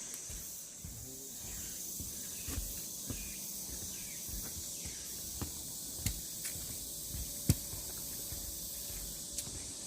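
Cicadas droning steadily in a high, even hiss. A few sharp knocks and low thuds break in, the loudest about seven and a half seconds in.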